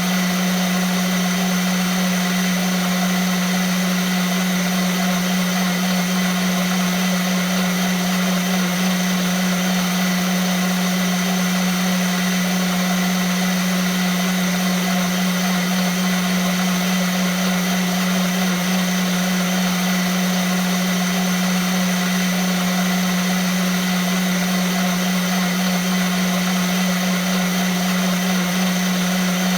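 Vitamix blender running continuously at a steady speed: a constant motor whine with a strong low hum and even hiss above it.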